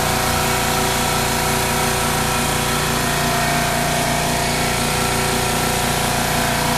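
Shop air compressor running steadily as it catches up, refilling its tank after the air-over-hydraulic ram has drawn air.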